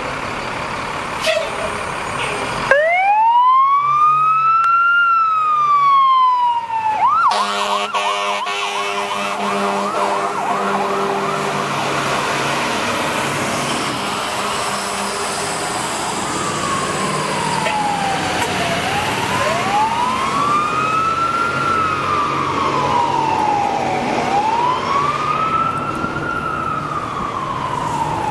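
Fire apparatus sirens responding to a call. A wail rises and falls, then switches to a fast yelp about seven seconds in, with a steady blaring horn under it. This fades away, and from about the middle a slow rising-and-falling wail repeats until the end.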